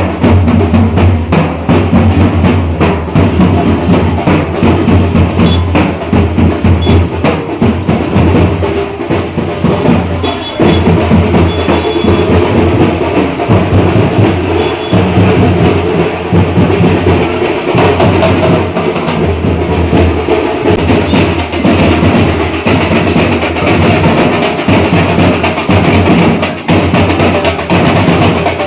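Loud, fast, continuous drumming with dense strokes and no break.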